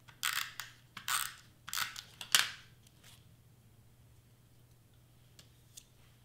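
Double-sided tape runner drawn across the back of a small cardstock piece in four short strokes over the first two and a half seconds, the last ending in a sharp click. After that there are only a couple of faint ticks of paper being handled.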